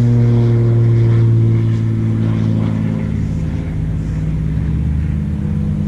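A motor switches on abruptly and runs with a loud, steady low drone at a constant pitch.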